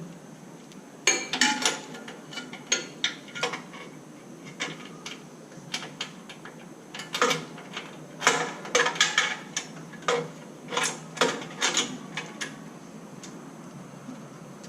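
Metal hand tools clinking and clattering in irregular bursts of sharp taps while spark plugs are being changed on an air-cooled VW engine.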